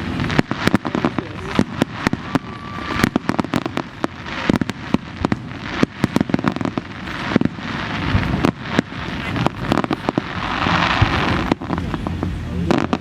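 Aerial fireworks display going off close by: a rapid, irregular string of sharp bangs and crackles.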